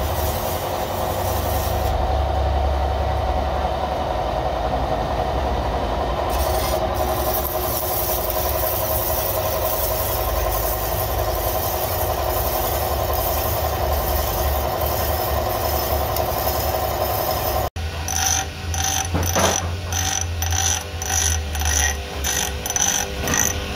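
Belt-driven pillar drill running steadily with a low hum while it drills metal. After a cut, a bench grinder grinds a small metal ring pressed against its wheel in short repeated strokes, about two a second.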